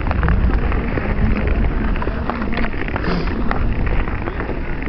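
Wind rushing over the microphone and ice-skate blades scraping along rough natural ice while skating at speed: a loud, steady low rumble with scattered short scratches.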